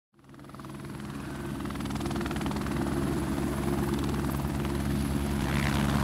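Helicopter sound with a rapid, even rotor beat over a low engine drone, fading in from silence and building steadily louder.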